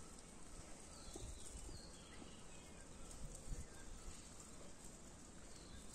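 Faint outdoor ambience: a few short, high bird chirps, and soft footsteps on stone paving, the loudest about three and a half seconds in.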